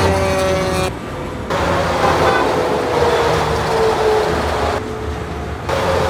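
Semi-trailer trucks passing at highway speed: engine and tyre noise with a steady tone that slowly falls in pitch as each truck goes by, heard in short clips with abrupt cuts between them.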